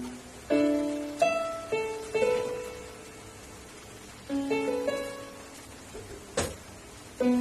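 Casio LK-65 electronic keyboard playing short phrases of single notes in a preset voice: about four notes, a pause, then three more. There is one sharp click about six seconds in.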